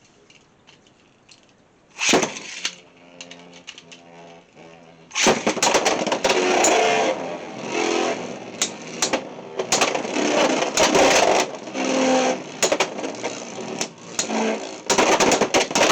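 Beyblade X spinning tops launched into a plastic stadium. A sharp snap about two seconds in is followed by a steady spinning hum. From about five seconds in comes loud, dense rattling and screeching as the tops clash and grind against the stadium.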